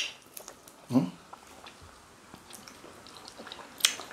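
Close-up eating sounds of fufu and ogbono soup eaten by hand: scattered wet lip smacks, mouth clicks and squishes, with a sharp smack at the start and another near the end. A brief hum comes about a second in.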